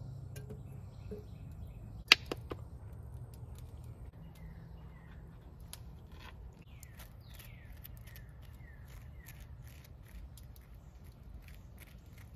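A sharp knock about two seconds in, with two lighter knocks just after, then a bird calling in a run of quick notes that each fall in pitch.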